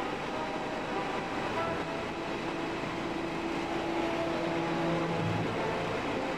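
Steady engine and rotor noise of a tour helicopter in flight, heard from inside the cabin. A few long held notes sound over it, the strongest near the middle.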